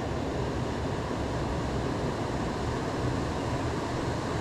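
Steady rushing of river water, an even noise that does not change.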